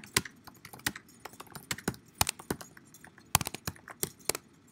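Typing on a keyboard: a run of irregular key clicks as a short sentence is typed, stopping shortly before the end.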